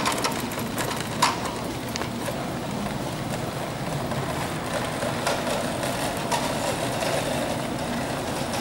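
Tatra T3 tram approaching along the street, giving a steady running rumble that grows a little in the second half. Two sharp knocks come right at the start and about a second later.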